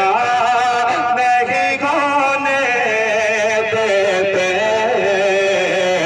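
A man singing long, wavering drawn-out notes into a microphone, amplified through a sound system: a melismatic devotional chant.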